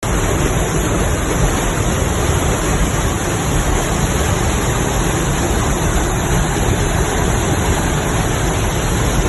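Waterfall: a loud, steady rushing roar of falling water.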